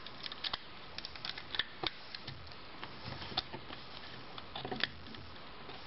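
Scattered light clicks and scrapes as a two-prong electrical receptacle is pushed into its wall box and its mounting screws are turned in.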